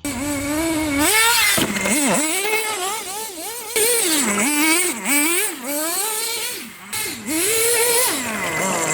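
Electric RC car's motor whining, its pitch rising and falling again and again as the throttle is blipped and released.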